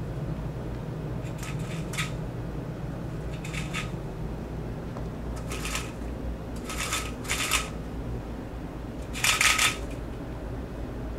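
Young northern mockingbird fluttering its wings against window blinds: about seven short rustling bursts of wingbeats, the longest and loudest near the end. A steady low hum runs underneath.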